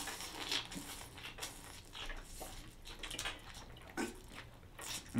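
A person slurping and chewing a mouthful of pho rice noodles with broth: irregular, wet mouth sounds.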